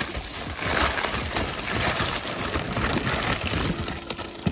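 Rustling and crinkling of packaging material being handled and pulled from a shipping box, a dense run of small crackles and scrapes.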